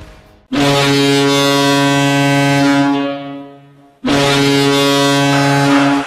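Kouvolan KooKoo's ice hockey goal horn sounding two long, low blasts: the first starts about half a second in and fades out after about two and a half seconds, the second starts about four seconds in and is cut off at the end.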